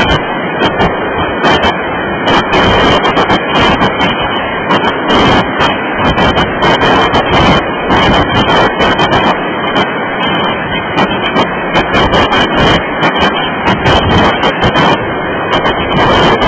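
Freight train cars rolling past at speed: a loud, steady rumble and rattle, broken by frequent irregular sharp clatters.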